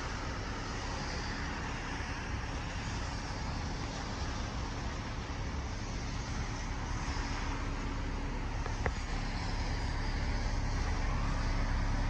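2020 Hyundai Santa Fe's four-cylinder engine idling, heard from behind the car at the exhaust: a steady low hum that grows a little louder toward the end. There is one brief click about nine seconds in.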